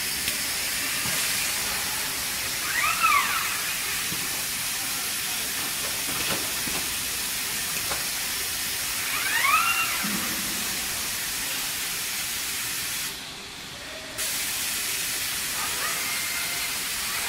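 Industrial robot servo drives whining up and back down in pitch each time an ABB robot arm makes a move, a few times, over a steady hiss in the cell.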